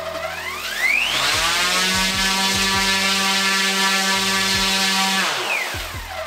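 Large 3D-printed brushless motor on a thrust stand, stepped from low to full throttle. Its whine climbs in pitch over about a second and a half, holds steady at full speed, then falls as the motor winds down near the end. The slow climb is the motor's laggy throttle response.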